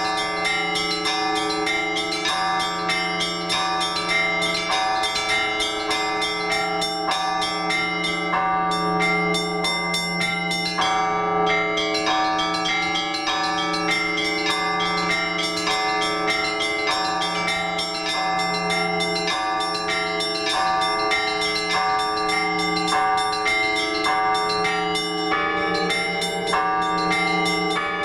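Russian Orthodox church bells rung together in a trezvon: small bells struck in quick, even succession over the lingering hum of a larger bell.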